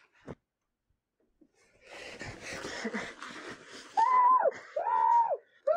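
Rustling and shuffling about two seconds in, then two high-pitched wheezing vocal cries near the end, each about half a second long and rising then falling in pitch.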